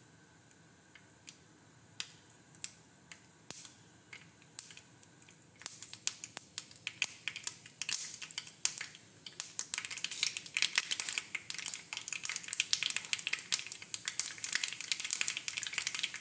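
Mustard seeds popping in hot coconut oil in a small kadai. There are a few scattered pops at first. From about five seconds in they thicken into dense crackling, which grows louder from about ten seconds on as the seeds splutter in earnest.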